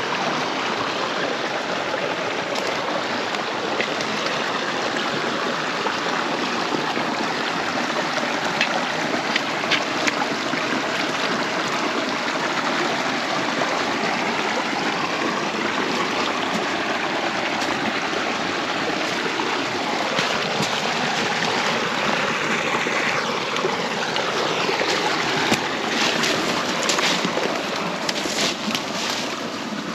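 Creek water running steadily, an even rush, with a few short sharp clicks near the end.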